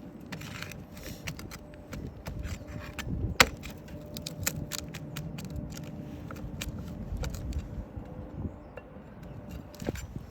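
Scattered clicks, scrapes and taps of hand tools working on roof shingles, with one sharp knock about three and a half seconds in, over a low steady hum.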